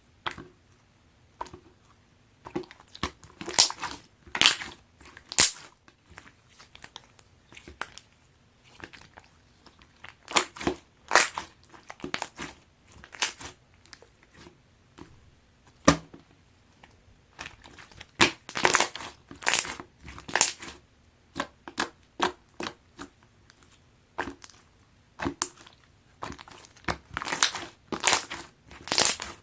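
Pearl slime being squished and pressed by hand: irregular sticky clicks and crackles, coming in clusters with short pauses between.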